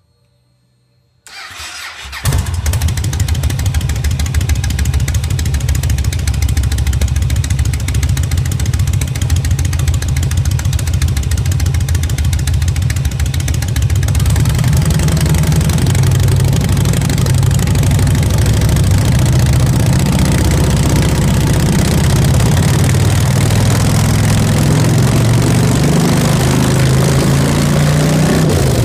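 Yamaha Warrior XV1700's air-cooled V-twin started through a custom open-ended stainless two-into-two exhaust. After about a second of starter cranking it catches, then runs loudly at idle, growing a little louder about halfway through.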